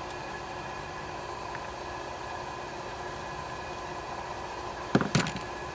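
A steady background hum with faint tones throughout. About five seconds in, a quick cluster of sharp knocks and rattles as the plastic-housed impact wrench is handled against the wooden workbench.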